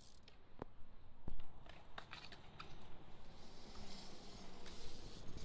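BMX bike rolling on skatepark concrete, with a few sharp knocks and clicks over a low rumble. The loudest knock comes about a second in.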